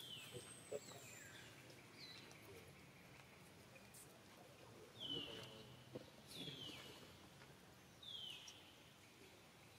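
Faint bird calls: short whistled notes that drop in pitch, repeated every second or two over a quiet background, with a few faint clicks.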